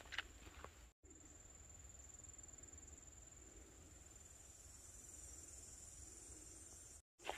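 Faint, steady high-pitched trill of insects in summer woodland, growing a little stronger in the second half. A few soft footstep crunches on dry ground in the first second, and the sound cuts out completely for a moment twice.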